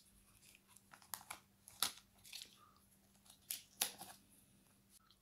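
Protective plastic film being peeled off a SteelSeries Arctis 5 headset's ear cup, crinkling in a run of irregular sharp crackles.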